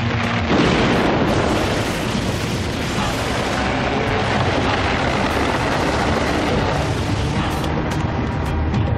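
Cartoon sound effect of a loud, rumbling blast as a stone wall cracks apart. It swells about half a second in and carries on as a dense, continuous rumble, with background music under it.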